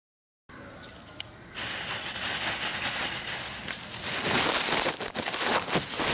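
Thin plastic carry bags rustling and crinkling as hands open and handle them right at the microphone. It starts faintly about half a second in and turns loud and crackly at about a second and a half.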